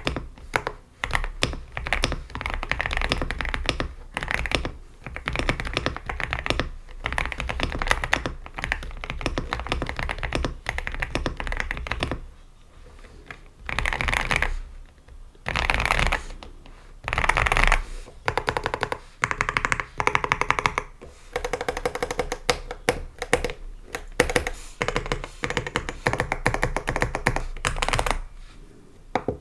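Mechanical keyboard fitted with Gateron Oil King linear switches being typed on quickly and continuously: a dense run of keystroke clacks, with a few short pauses.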